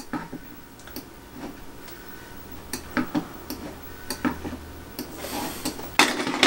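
Irregular light clicks and taps from a computer mouse and keyboard, with a louder short noise near the end.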